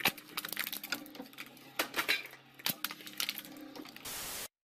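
Irregular small clattering clicks and knocks, several a second and uneven. About four seconds in, a short burst of steady hiss cuts off suddenly into silence.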